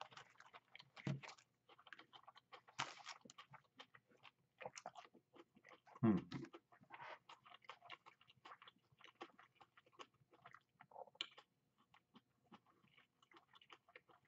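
A person chewing a mouthful of gochujang beef with cauliflower and other vegetables close to the microphone: soft, irregular crunching and wet mouth clicks. One louder knock comes about six seconds in.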